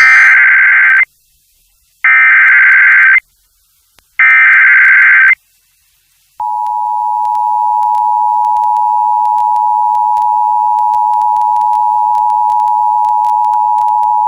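Emergency Alert System tones on a radio broadcast: three bursts of SAME header digital data tones, each about a second long and about a second apart, then the steady two-tone EAS attention signal starting about six seconds in and held for about eight seconds. They open a flash flood warning.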